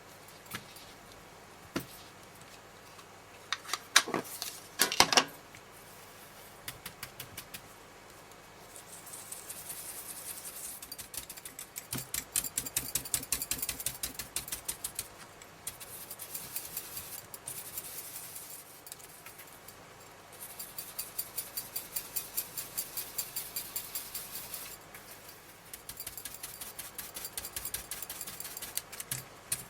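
Ink blending tool scrubbed rapidly back and forth on card stock, inking paper pop-up pieces: runs of quick, even scratchy strokes several times a second, in bursts of a few seconds, after a few sharp clicks near the start.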